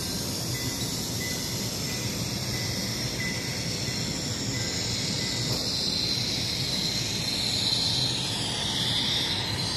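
DCC sound decoder in an N-scale United Aircraft gas-turbine train model playing turbine sound: a steady turbine hiss and whine that swells and shifts in pitch near the end, like a turbine spooling up.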